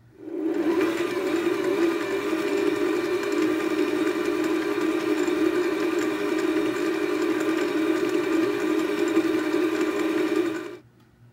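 Electric stand mixer running at a steady speed, its flat beater stirring dry flour and sugar in a steel bowl. The motor hum starts just after the beginning and stops abruptly near the end.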